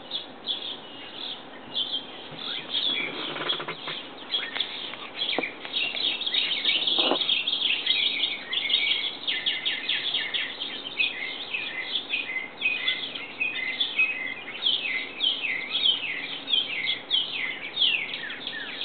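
Songbirds chirping busily: many short, overlapping, falling chirps, thickening into a dense chatter after the first few seconds.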